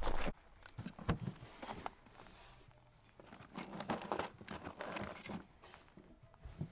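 A hand rummaging inside a plastic cooler, with scattered clinks and rustles as cans are moved about and one is lifted out near the end.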